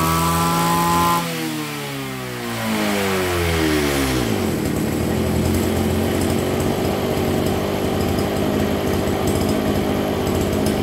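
STIHL FS260 brush cutter's 26 cc engine revving high, dropping about a second in, revving up once more, then falling to a steady idle about four seconds in. It idles smoothly with no rattle.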